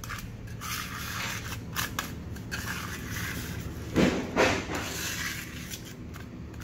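Steel putty knife scraping over a concrete floor in short strokes, pushing a thick, paste-like filler mixed with dry sand into a crack, with a gritty crunching. Two louder knocks come close together about four seconds in.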